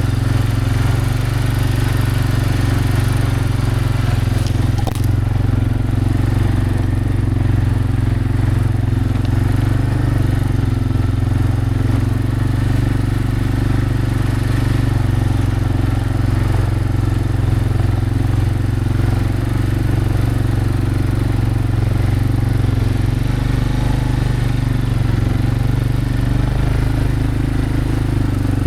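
An engine running steadily at one speed, with a single sharp click about five seconds in.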